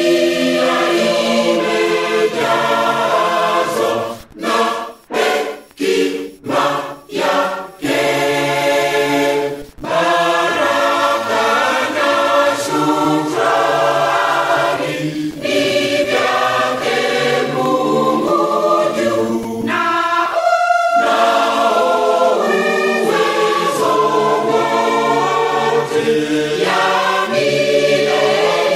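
Church choir singing a Swahili hymn in harmony. About four seconds in, a run of about five short, clipped chords with gaps between them; otherwise the chords are held, with a brief break a little past the middle.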